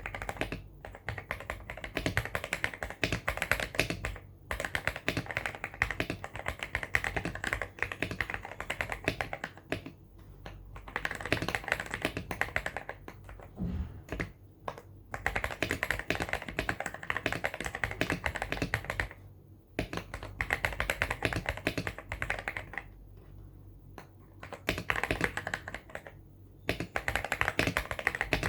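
Typing on a Weikav WK75 Pro mechanical keyboard with lubed and filmed MMD Cream linear switches and PBT keycaps, fast runs of keystrokes broken by short pauses, in the muted, deep "thocky" and "creamy" sound the build is known for.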